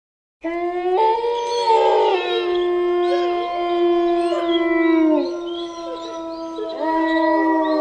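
Several wolves howling together in long, overlapping held notes, coming in suddenly about half a second in. The lowest howl falls away about five seconds in, and another rises in near the end.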